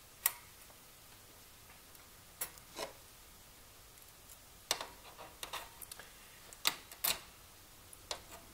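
Irregular light metallic clicks and ticks from fingers handling the coiled return spring and toothed wheel of a pinball machine's step-up unit as its spring preload is set: a sharp one right at the start, a few more around three seconds in, then a cluster in the second half.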